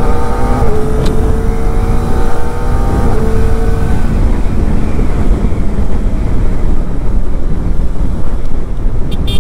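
Kawasaki Ninja ZX-4RR's 400 cc inline-four engine pulling under way, its note rising slowly, then giving way about four seconds in to a loud rush of wind on the helmet microphone.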